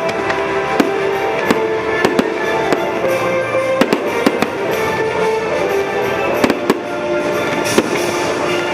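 Fireworks going off in an irregular series of sharp bangs and crackles over the show's music, which plays steadily with held notes underneath.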